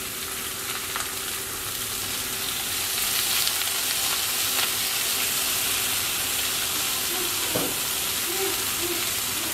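Drum fish fillets and thinly sliced onions sizzling steadily in a hot frying pan, growing a little louder after about three seconds.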